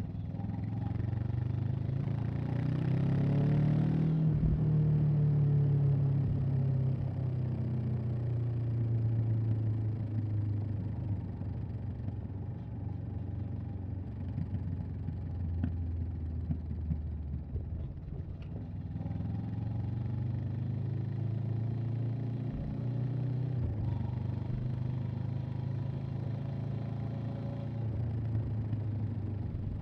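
Honda CB500X's parallel-twin engine and exhaust under way: the revs climb over the first few seconds, fall away slowly for about a dozen seconds, then pick up again past the middle and hold fairly steady.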